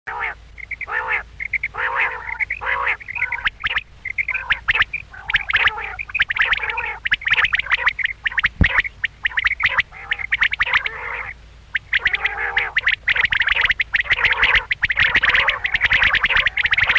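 Quail calling over and over in short, harsh notes. After the first few seconds more calls pile in and overlap into a busy chatter.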